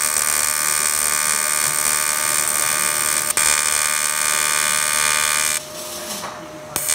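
AC TIG welding arc on thin aluminium, fed by an EWM Tetrix 230 AC/DC inverter, buzzing steadily with a high-pitched, harsh tone and one brief crackle about three seconds in. The arc stops about five and a half seconds in and strikes again just before the end.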